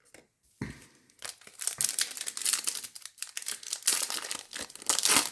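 Foil wrapper of a Topps Chrome baseball card pack crinkling and tearing as it is ripped open by hand, with a dense run of crackles after a soft thump about half a second in.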